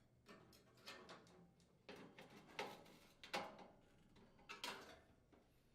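Faint, scattered knocks and clicks, about six over several seconds: the metal cooktop and its parts being handled and set in place on a gas range during reassembly.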